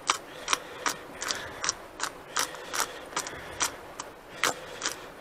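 Hand-twisted pepper mill grinding peppercorns, a regular ratcheting click about two to three times a second.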